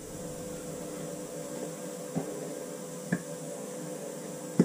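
Steady electrical hum with three light clicks of small engine parts being handled, the last and sharpest near the end.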